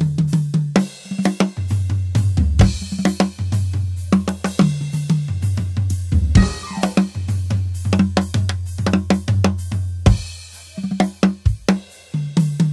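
A Pearl drum kit played in a band groove, with snare, bass drum, hi-hat and cymbal hits over a held electric bass line; the playing thins out briefly near the end.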